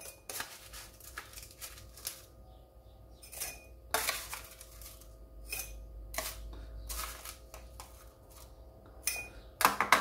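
Metal spoon scraping and clinking against a ceramic dish as crushed ice is scooped out and dropped into a drinking glass: an irregular run of taps and scrapes, loudest in a cluster near the end.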